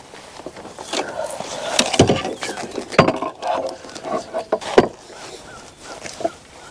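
Clatter, rustling and sharp knocks as a just-landed largemouth bass and a plastic measuring board are handled on a kayak deck, with three loud knocks about a second apart near the middle.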